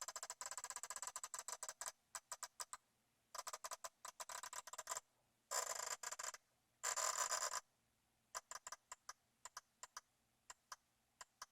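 Panasonic RC-6030 flip clock's number leaves snapping over as the time-setting knob is turned by hand: several runs of rapid clicking, then slower single clicks in the last few seconds.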